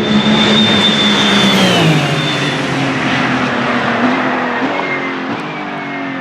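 A Ferrari racing car passing at speed. Its engine note is loud and high, drops sharply in pitch as it goes by about two seconds in, then trails off.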